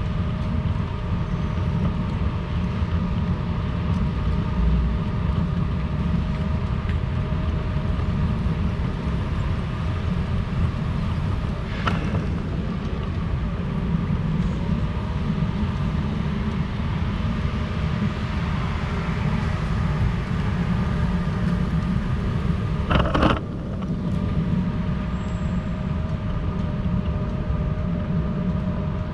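City street ambience: a steady low rumble of traffic noise with a constant mechanical hum. Two brief sharp clicks come about 12 and 23 seconds in, the second the louder.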